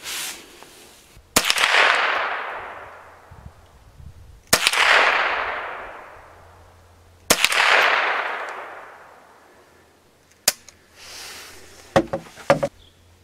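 Henry U.S. Survival Rifle (AR-7), a semi-automatic .22 Long Rifle, fired three times about three seconds apart, each shot followed by a long fading echo. A single sharp click comes about ten seconds in, and a quick run of clicks near the end.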